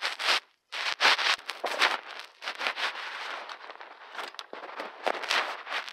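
Rustling and scraping of paper cutout figures and a hand brushing over bedding close to the phone's microphone, in irregular bursts with a brief gap about half a second in.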